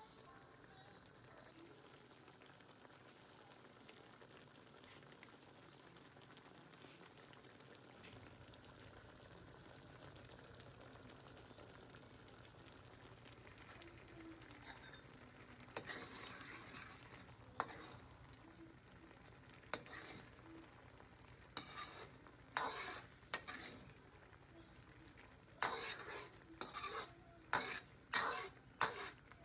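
Shrimp in red sauce simmering and sizzling faintly in a wok. From about halfway a metal spoon scrapes against the wok now and then, and near the end it stirs quickly in a run of scraping strokes.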